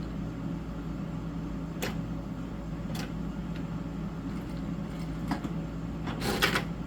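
KANSUN KS-A8F industrial sewing machine humming steadily while switched on, with two sharp clicks about two and three seconds in and a short mechanical burst near the end.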